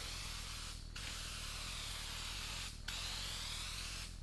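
Aerosol can of dry graphite lubricant spraying in long, steady hisses, with brief pauses about a second in and near three seconds in.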